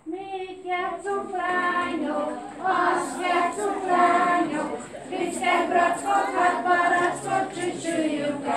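A group of kindergarten children singing a song together, unaccompanied.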